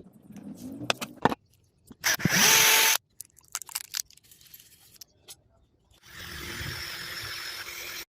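Handheld power tool running in two bursts that start and stop abruptly: a loud one about two seconds in lasting under a second, and a longer, quieter one from about six seconds on. A few sharp clicks and knocks come before and between them.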